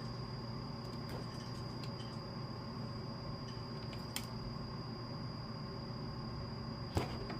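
Small clicks and snaps of wire cutters trimming wire ends on a motorcycle wiring harness, over a steady hum. A sharper snap comes about four seconds in, and the loudest about seven seconds in.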